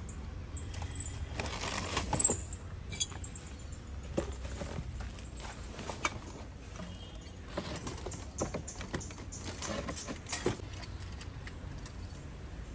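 Plastic carrier bags rustling and crinkling as luggage is handled and lifted out of a car boot, with scattered light knocks and clicks of items being moved. The rustling comes in a few short spells.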